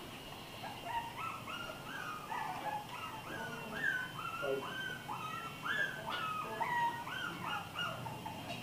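American Bully puppies whining and whimpering: a steady string of short, high-pitched cries from more than one puppy, overlapping at different pitches.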